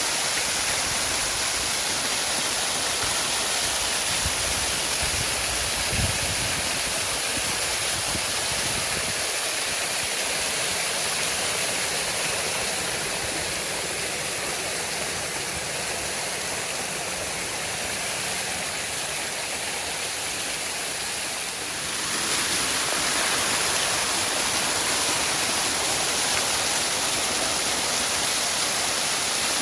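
Waterfall rushing steadily, falling water making an even, unbroken roar. It gets slightly louder about three quarters of the way through, and a brief low thud sounds about six seconds in.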